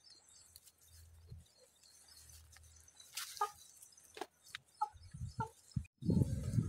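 Domestic hens clucking, a handful of short clucks from about halfway through. A louder low rumbling noise starts near the end.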